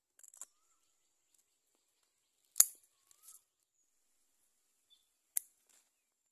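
Scissors snipping through taro leaf stalks: a few sharp snips, the loudest about two and a half seconds in and another near the end.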